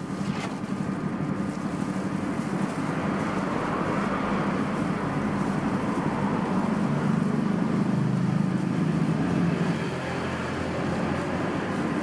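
Steady background rumble and hiss with a low hum, swelling a little in the middle.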